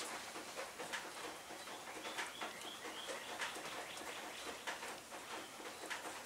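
Faint clicks and light metal ticks as the ring and pinion gears of a Suzuki Samurai rear third member are turned by hand, rolling them through fresh marking compound to check the gear contact pattern. A few faint high chirps come in about two seconds in.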